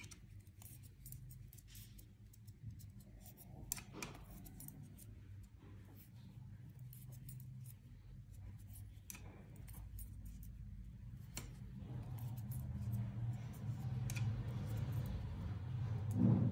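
Knitting needles clicking and tapping against each other now and then as stitches are knit, with yarn rubbing softly. A low steady hum grows louder in the last few seconds.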